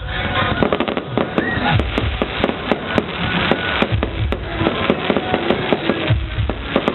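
Fireworks bursting in quick succession: a dense run of sharp cracks and pops, several a second.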